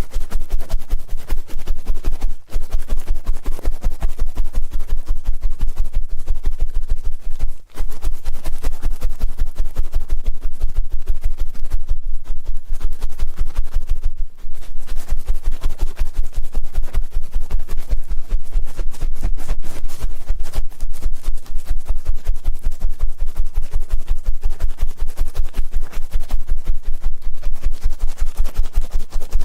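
Ear-cleaning sounds made close on an ASMR microphone: rapid, continuous scratching and rubbing strokes, broken by a few brief pauses.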